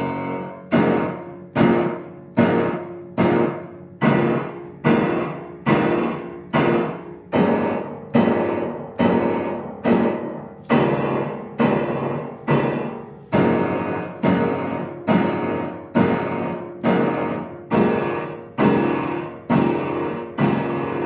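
Piano played by a young student: her own short composition, chords struck on a steady beat a little more than once a second, each one ringing and dying away before the next.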